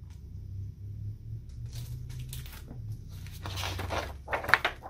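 Page of a large hardcover picture book being turned: paper rustling and flapping for about a second near the end, over a low steady hum.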